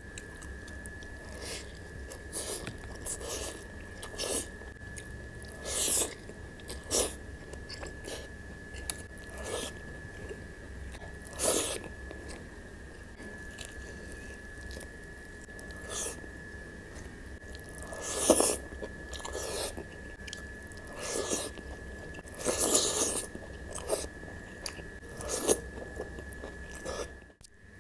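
Close-miked chewing and biting of a nasi padang meal of fried chicken, rice and cooked greens, with irregular crunches.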